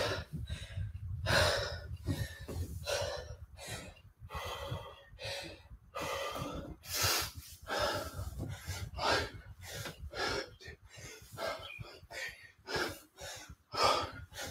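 A man breathing hard and fast from heavy exertion, with short gasping breaths in and out about twice a second.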